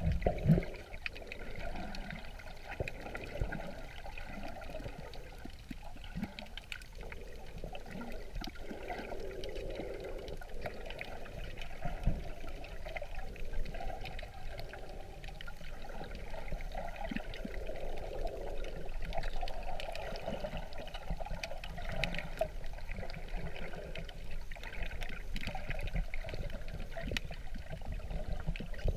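Underwater ambience picked up by a submerged waterproof camera: a muffled, steady wash of moving water, with scattered small clicks and knocks.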